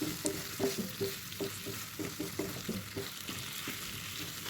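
Chicken pieces and potatoes frying in a little hot oil in a kadai: a steady sizzle with frequent short pops and crackles.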